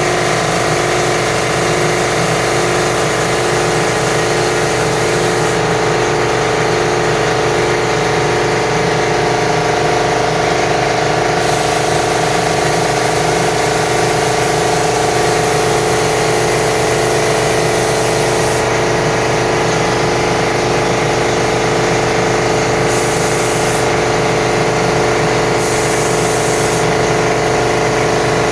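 Paint sprayer running steadily, its motor and pump giving a constant hum with a few steady tones. The high spray hiss cuts out and comes back several times as the spray is stopped and started.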